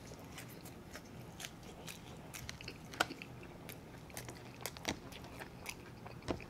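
Close-miked chewing and wet mouth clicks from a person eating chicken wings, with sharper smacking clicks about three and five seconds in.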